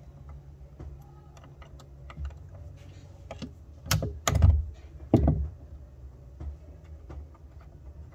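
Small clicks and taps of hands handling heavy battery cables and metal terminal connectors, with three louder knocks about four to five seconds in.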